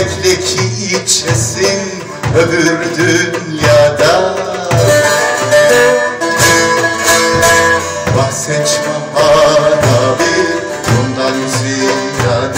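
A bağlama (saz) plucked in a Turkish folk tune, with a darbuka beating a steady rhythm underneath.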